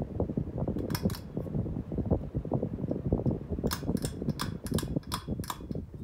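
Hunter Stratford ceiling fan with an AirMax motor running, a dense low rumble of motor and moving air. Over it, the light kit's pull-chain switch clicks sharply twice about a second in, then about eight more times between about four and five and a half seconds, switching the lights off.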